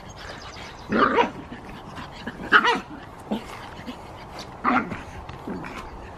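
Pug puppy barking three times in short bursts while playing.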